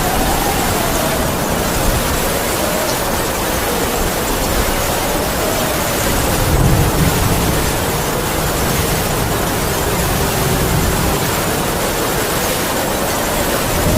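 Heavy rain falling steadily, with wind howling over it in a faint wavering whistle that slowly rises and falls in pitch.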